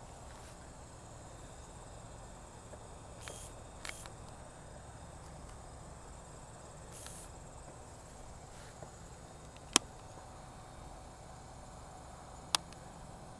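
Faint steady insect chorus, with a few sharp clicks from handling the potato cannon's mount and controls; the two loudest clicks come about ten seconds in and near the end.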